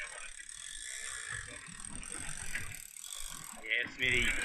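Big-game trolling reel's ratchet clicking steadily on a heavy rod, with voices coming in near the end.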